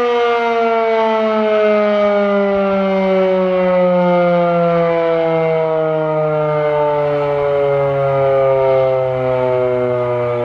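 Federal Signal Model 7B electromechanical fire siren winding down, a loud wail whose pitch falls slowly and steadily.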